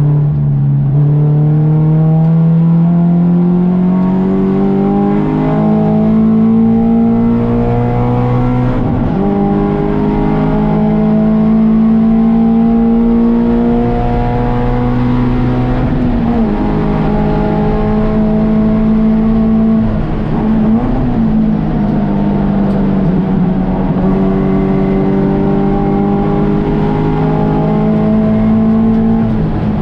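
Touring 4 race car engine running hard on track, its pitch climbing slowly under load, with brief dips in pitch about 9, 16 and 21 seconds in and a drop near the end.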